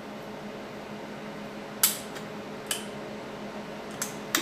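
Wiseco piston being tapped down through a ring compressor into the LS block's cylinder bore with a rubber hammer: four sharp taps, one fainter, the last two close together, over a faint steady hum.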